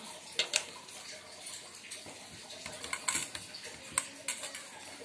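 Scattered light clicks and taps of hilsa fish pieces and fingers against steel bowls as the pieces are lifted out and laid into mustard paste, a few sharp ticks at uneven intervals.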